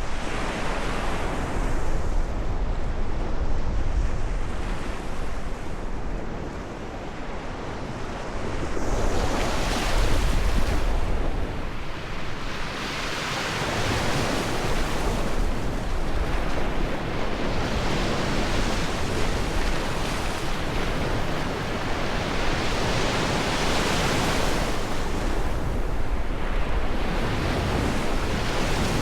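Ocean waves breaking and washing onto the shore in repeated surges, each swell rising and falling over a few seconds, with wind rumbling on the microphone.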